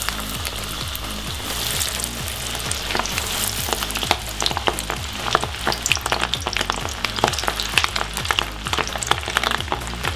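Breadcrumb-coated squid rings deep-frying in hot oil in a frying pan: a steady sizzle with sharp crackling pops, the pops growing more frequent after a few seconds.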